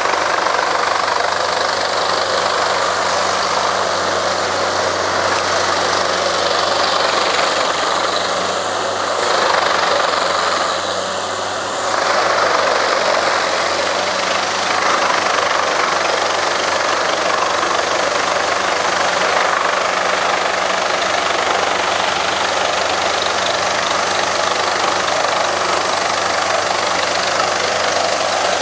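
Large mobile wood chipper running under load as logs are fed into it, a loud steady mix of engine drone and grinding, with chips blowing out of its discharge chute. The noise swells and then briefly dips about ten seconds in.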